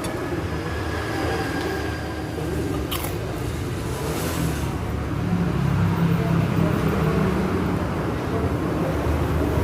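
Steady low rumble of road traffic, with a single light click about three seconds in.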